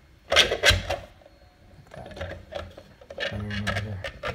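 3D-printed plastic robot shell clattering and scraping against its printed base as it is pushed on by hand to clip together, with a burst of knocks about half a second in and scattered knocks after.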